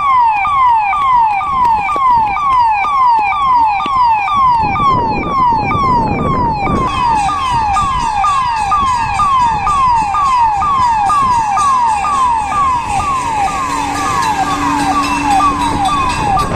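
Fire engine siren sounding in a fast repeating pattern, each sweep falling in pitch, about two and a half a second. A low rumble builds under it from about five seconds in.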